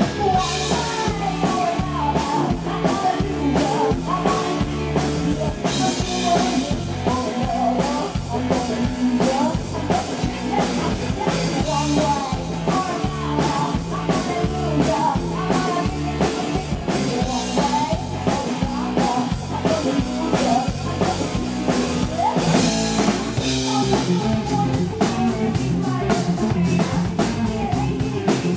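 Live rock band: a woman singing into a handheld microphone over a drum kit, electric guitar and bass guitar.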